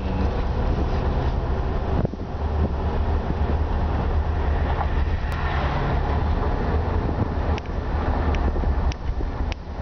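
Road and engine noise from a moving vehicle: a steady low rumble with a rushing hiss. From about three-quarters of the way in come sharp clicks, roughly every two-thirds of a second.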